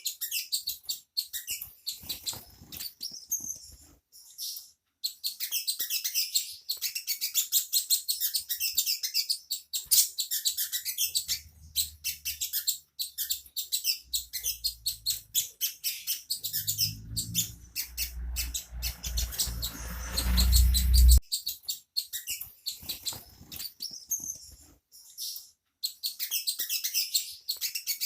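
Little spiderhunter (sogok ontong) singing long runs of sharp, high chirps repeated very fast, broken by a few short pauses. A low rumble builds under the song partway through and cuts off suddenly about three-quarters of the way in.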